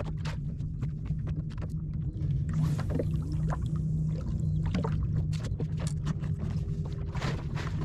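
A small boat at anchor on choppy water: a steady low rumble with frequent small knocks and slaps against the hull.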